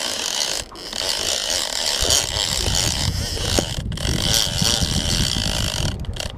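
Big conventional fishing reel's drag clicker ratcheting as a hooked blue shark pulls line off against the drag, with a low rumble joining about two seconds in.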